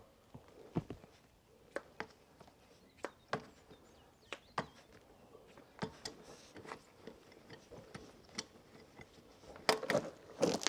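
Scattered light clicks and knocks of hand tools and metal parts being handled during work on a tractor, with a short louder clatter near the end.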